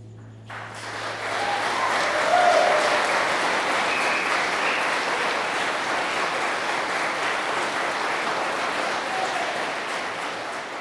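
Wedding guests applauding, the clapping starting about half a second in, building quickly to a steady level and fading near the end, as the couple share their first kiss after being pronounced husband and wife.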